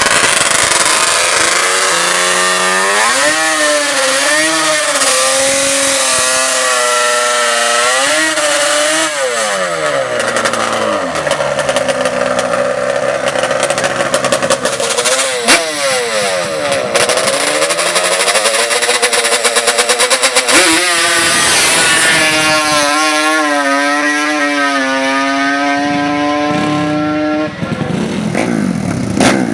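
Racing ATV engine revving up and down, its pitch rising and falling again and again. Near the end it holds a steady high rev for a few seconds, then drops off.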